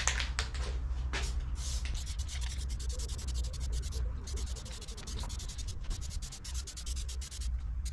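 Aerosol can of Plasti Dip being shaken hard, its mixing ball rattling rapidly in runs with short pauses.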